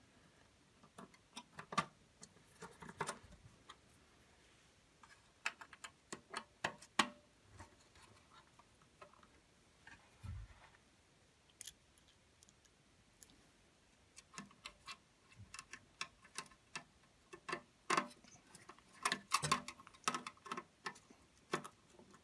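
Irregular light metallic clicks and taps of a screwdriver and screws being driven back in to mount a TV circuit board, with one dull low knock about ten seconds in.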